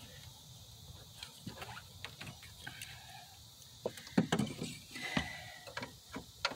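Scattered clicks and knocks of hands and a tool on metal as a serpentine belt is worked onto the pulleys around a replaced alternator, the loudest knocks about four to five seconds in.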